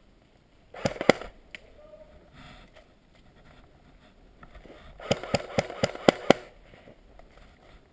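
Airsoft guns firing single shots: a few sharp shots about a second in, then a quicker string of about seven shots between five and six and a half seconds in.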